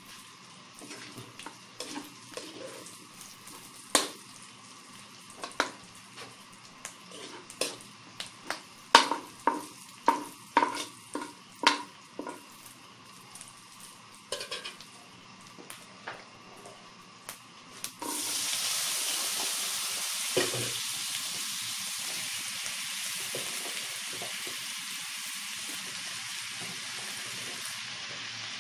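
Pork and onions frying in a steel wok, with a metal ladle clinking and scraping against the pan in a series of sharp clanks. About eighteen seconds in, a much louder, steady sizzle starts abruptly as sliced bottle gourd goes into the hot oil, with one knock soon after.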